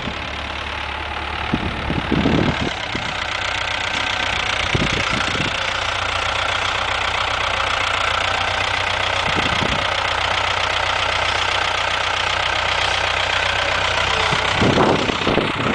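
Ford tractor engine running steadily at a low idle-like pace, with a few faint knocks along the way.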